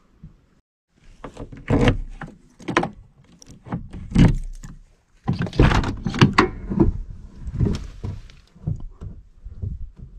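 Keys jangling and a key working an old pickup truck's door lock, with a series of clicks and clunks from the handle and latch as the door is unlocked and pulled open.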